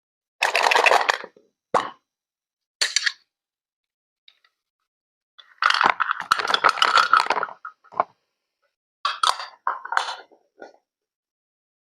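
Water plopping and splashing in short separate bursts, with one longer spell of splashing in the middle and dead silence between the bursts.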